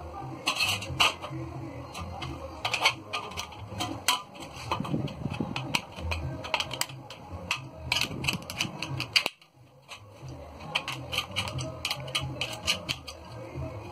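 Metal snips cutting and bending a galvanized steel drywall channel, a run of sharp metallic clicks and snaps, over background music. The sound drops out briefly a little past halfway.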